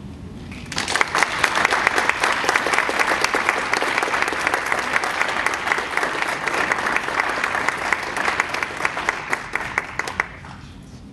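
Audience applauding: dense clapping that starts about a second in, holds steady and dies away near the end.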